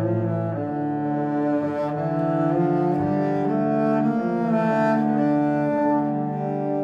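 Slow background music of sustained low bowed string notes, each held about a second before the next.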